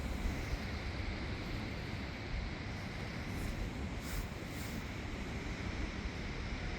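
Steady outdoor noise with a low rumble, like wind buffeting the microphone, and a few faint brief hisses a little past the middle.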